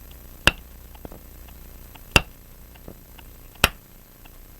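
Three sharp metal taps, about a second and a half apart, from a hammer striking the punch of a K&D balance staff remover in a staking set, driving the riveted balance staff of a pocket watch out of the balance wheel.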